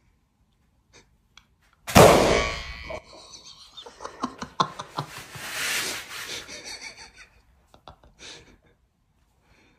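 A loud, sudden whack about two seconds in, ringing out briefly, as a foam pool noodle comes down on a person's masked head. Scattered knocks and rustling follow.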